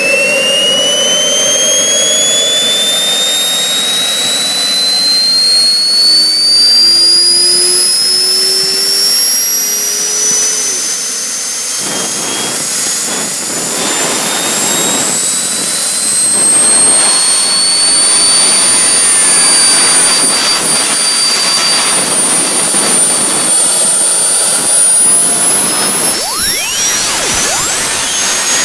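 RC model jet turbine engine spooling up during its start, a high whine climbing steadily in pitch. About twelve seconds in a loud rushing noise joins the whine, typical of the turbine lighting and burning fuel. The whine climbs again near the end.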